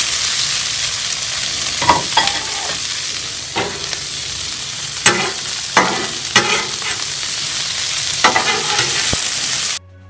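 Sliced bell peppers and onions sizzling loudly in plenty of avocado oil on a Blackstone flat-top gas griddle. Metal spatulas scrape and clank on the steel plate about six times as the vegetables are tossed. The sizzle cuts off suddenly near the end.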